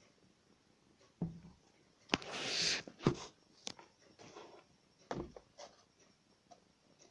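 Handling noise: several separate knocks and clicks, with a short rustle a little over two seconds in, as objects are picked up and set down.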